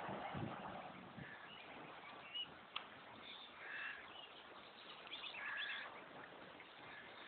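Mute swan cygnets peeping: several short high-pitched calls, clustered through the middle, over a faint steady hiss. A single sharp click sounds about three seconds in.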